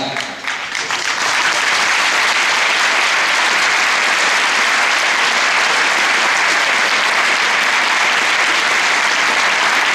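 Audience applauding, the clapping swelling in the first second and then holding steady and full.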